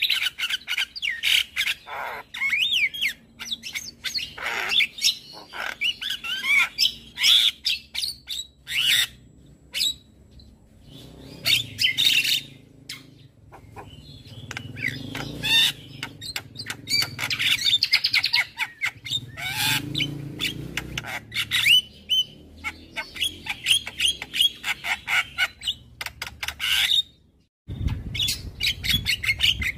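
Javan myna singing a rapid, unbroken medley of chirps, whistled glides, harsh squawks and sharp clicks. About two seconds before the end the song stops short, then starts again over a low rumble.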